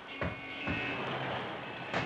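Vintage cartoon soundtrack of a traffic jam: car and street-traffic sound effects over the orchestral score, with a few knocks and several steady held tones.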